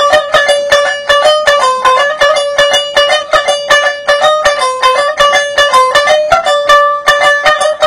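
Tumbi, the one-string Punjabi plucked lute, played solo with quick, even plucks. It picks out a short melody that steps up and down among a few high notes and repeats.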